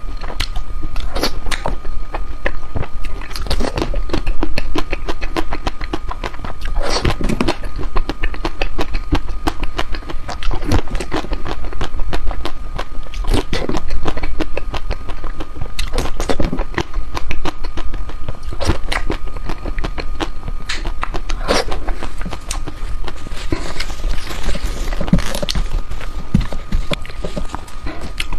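Close-miked eating of chocolate ice cream: irregular bites, scrapes and wet mouth clicks, with a louder one every second or two, over a steady hum.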